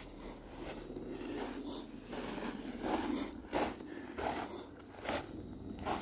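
A hiker's footsteps on a sandy, gritty trail at a steady walking pace, about three steps every two seconds.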